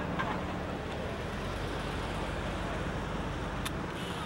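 Steady wind rumble and rush on a camcorder microphone, with a faint low hum underneath.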